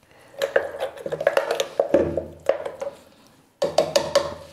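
A spoon stirring and scraping masala paste thinned with water in a plastic blender jar, with irregular clicks and knocks against the jar's sides.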